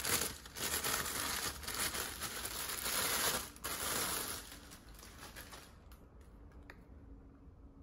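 Thin tissue paper crinkling and rustling as it is handled and slid off a wrapped handbag. It dies down about three quarters of the way through, leaving a few faint clicks.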